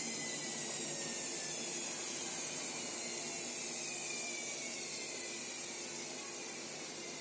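Washing machine slowing down: a hissing rush with a motor whine that slowly falls in pitch, growing gradually quieter.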